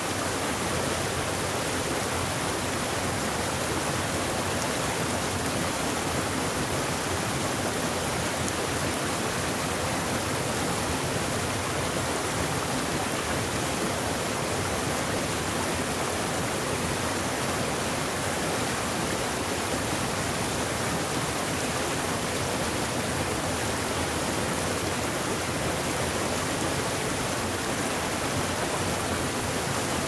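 Mountain stream pouring over boulders in small cascades: a steady, even rush of water.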